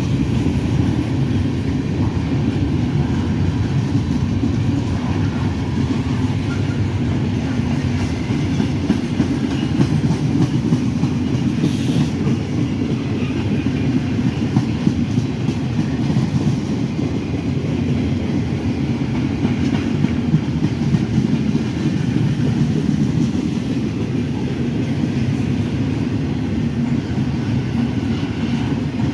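Freight train rolling past with a steady, loud rumble of steel wheels on the rails and no horn.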